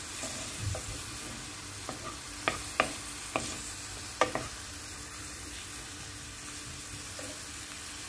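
Diced onion sizzling in oil in a frying pan, with a steady hiss. A wooden spatula stirs it, knocking sharply against the pan about five times in the middle.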